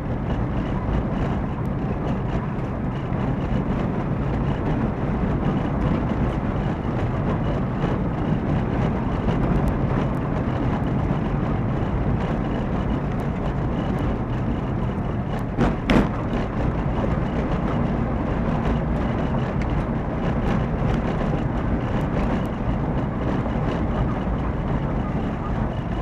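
A car driving along a forest road, heard from inside the cabin: steady tyre, road and engine rumble with scattered small ticks, and one louder knock about sixteen seconds in.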